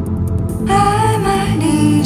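Background music with a steady low backing; a higher melody line comes in a little under a second in.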